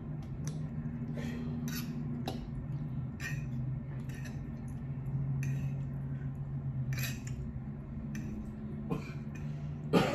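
Eating sounds: a metal fork clinking and scraping on a plate between chewing, with short sharp clicks every second or so and a louder knock near the end. A steady low hum runs underneath.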